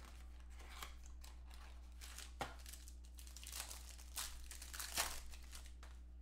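Clear plastic wrapping on a box of trading cards being torn and pulled off by hand, crinkling in irregular crackles with the loudest ones about halfway through and around five seconds in.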